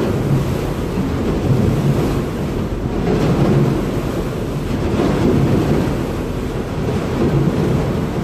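Wind buffeting the microphone over the low, steady rumble of a river ferry under way, with its water churning. It is a loud, ongoing noise that swells and fades without any sharp events.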